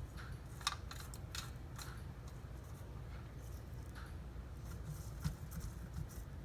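Scattered light clicks and scrapes of kitchen handling while squash halves are brushed with seasoned oil, over a low steady hum.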